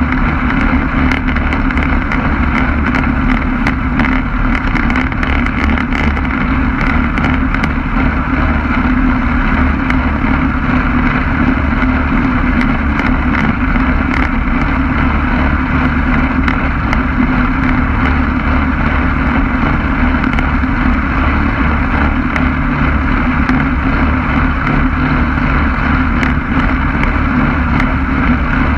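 Quicksilver MX ultralight's two-stroke engine running steadily at a constant pitch, with wind noise on the microphone.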